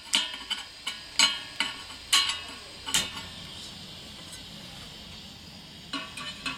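Hand-held spark gas lighter clicking repeatedly, about eight sharp clicks over three seconds, to light an LPG stove burner, followed by the steady hiss of the burning gas. Near the end a metal pot clinks down onto the burner's pan support.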